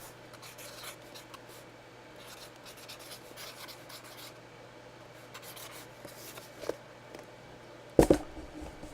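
Faint rubbing and handling noises over a steady low hum, with a small tap late on and one sharp knock near the end.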